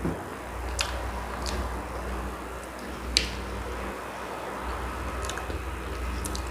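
Eating sounds from chewing linguiça sausage: a handful of short, sharp mouth clicks and smacks, one about three seconds in the loudest, over a steady low rumble.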